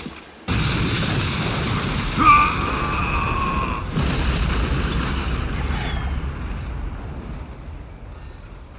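A dramatic sound effect: a heavy low rumble cuts in suddenly about half a second in, with a short high screech about two seconds in, then fades slowly away.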